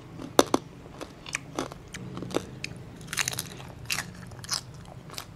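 Close-miked eating sounds: biting and chewing with crisp crunches and wet mouth clicks, a denser run of crunching a little past halfway, as someone eats chicken noodle soup.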